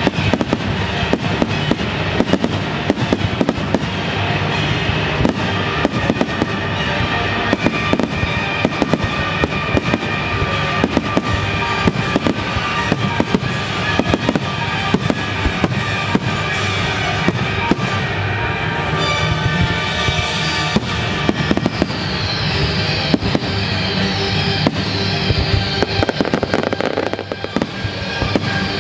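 Fireworks display: aerial shells going off in rapid, continuous bangs, over a loud music soundtrack played with the show.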